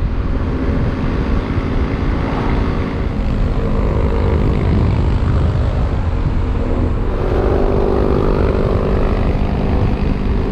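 Motorcycle riding along: a steady engine drone with wind rush, the engine note shifting in pitch about seven seconds in.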